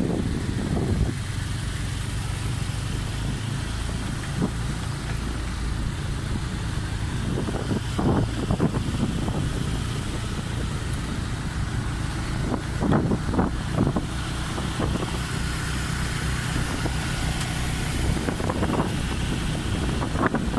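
Motor vehicle engine running steadily with road and wind noise, as heard by someone riding along, with a few brief knocks or rattles.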